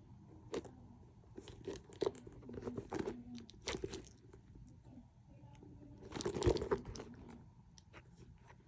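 Handling noise from a small leather wallet and its wrapping being turned over in the hands: scattered light clicks and crinkles, with a denser burst of crinkling about six seconds in.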